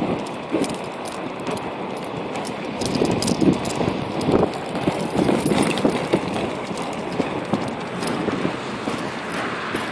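Inline skates rolling fast over a wet asphalt path, a steady rolling rush with irregular clicks and knocks, busiest and loudest between about three and six seconds in.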